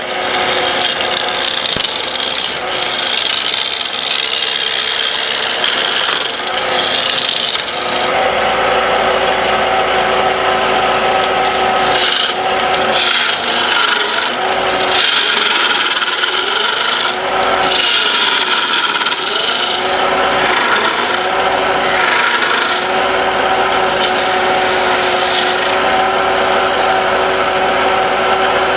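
Wooden pestle blank turning on a wood lathe, with a continuous scraping rub of a tool or abrasive against the spinning wood. About eight seconds in, a steady machine hum comes in more strongly, and it wavers in pitch for a while in the middle.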